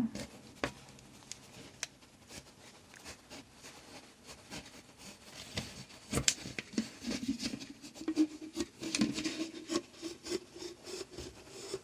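A plastic bottle being cut down to make a funnel: irregular scraping of the plastic with scattered sharp clicks.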